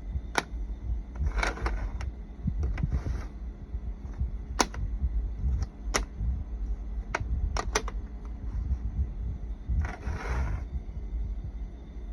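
Hard plastic letter pieces of a magnetic phonics toy being handled and set down: about half a dozen sharp clicks, a few at a time, with brief rustles of handling, over a low steady rumble.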